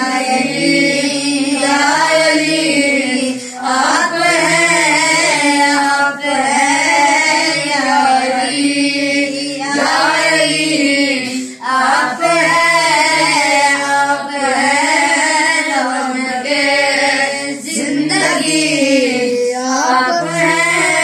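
A naat sung by a high voice in long, wavering phrases, with short breaks between phrases every few seconds.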